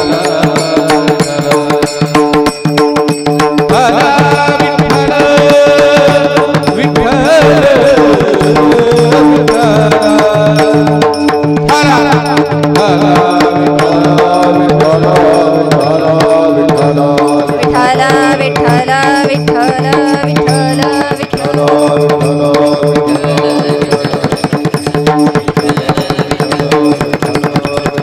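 Devotional kirtan music: a steady drone under a wavering melody, with a hand drum keeping the rhythm.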